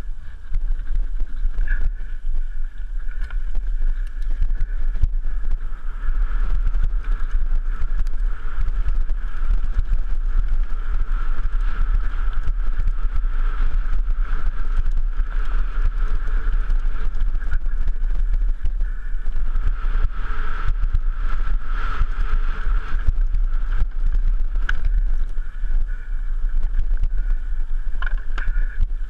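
Mountain bike descending a rocky trail, heard from a helmet camera: steady low wind rumble on the microphone, with the tyres crunching over gravel and stone slabs and the bike rattling and clicking over the bumps.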